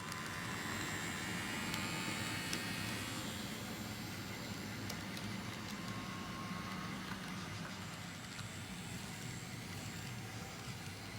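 Model train running on the layout track: a steady rumble of motor and wheels on rail, with a few sharp clicks.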